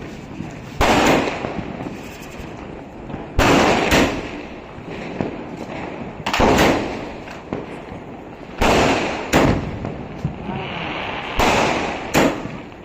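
Rolling 12-shot firework cake from Mori Fireworks firing its shots one after another, a sharp bang or pair of bangs about every two and a half seconds.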